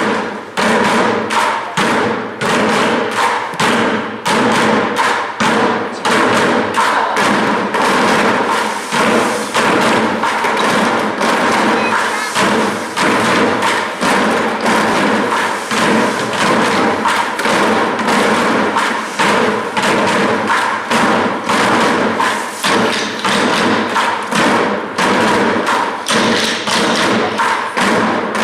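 Rapid, loud thumps and knocks, several a second, over music with held tones.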